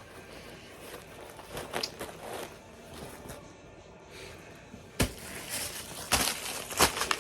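Things being handled: light rustling, then a few sharp knocks from about five seconds in, the loudest near the end.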